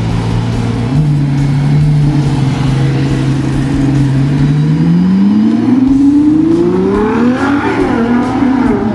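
Ferrari Daytona SP3's V12 engine pulling away. It holds a steady note at first, then the revs climb for about three seconds before easing near the end.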